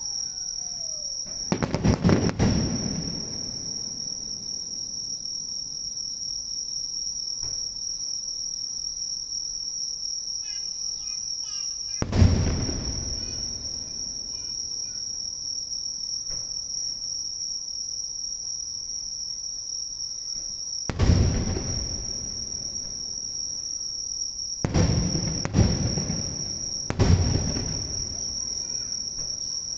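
Fireworks shells bursting overhead: about six deep booms, each with a rumbling tail, one about two seconds in, one around twelve seconds, and a quick cluster near the end. Under them, insects chirr steadily in a high-pitched chorus.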